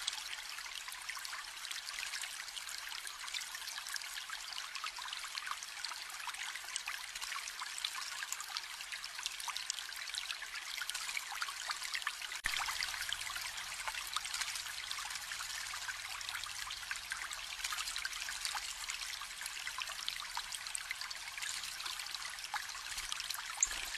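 Water trickling and splashing steadily, with many small splashes and drips in a continuous stream-like flow. A faint low rumble joins about halfway through.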